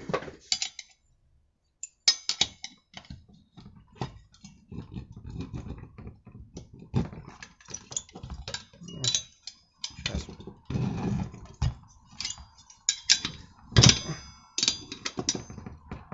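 Steel hand tools clinking, scraping and knocking against a petrol brushcutter engine's centrifugal clutch as a wrench is worked on it to unscrew it. The clutch is tight. It makes an irregular run of sharp metallic clicks and knocks, the loudest about 14 seconds in.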